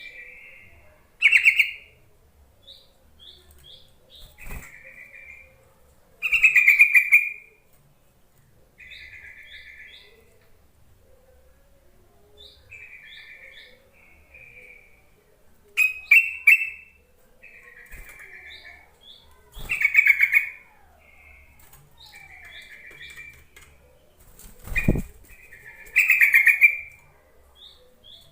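Yellow-vented bulbul (trucukan) calling over and over: a set of three short, high rising notes, then a bubbly chattering phrase, with several louder, harsher bursts in between. A low thump comes near the end.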